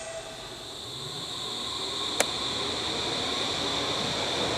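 Berlin U-Bahn IK-series small-profile train at the platform, running with a steady high whine that grows louder as it gets under way, with one sharp click a little past halfway.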